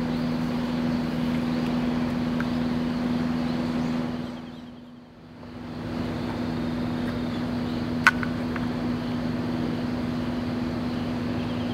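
Steady engine drone with a constant low hum, fading down and back up about halfway through. A single sharp click about eight seconds in.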